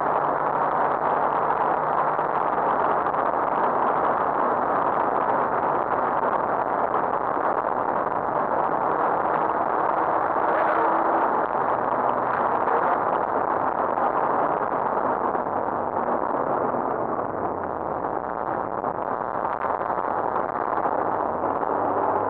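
Rally car running at speed, heard from inside the cabin: a steady, dense rush of engine, tyre and wind noise. The engine eases off about two-thirds of the way through and picks up again near the end.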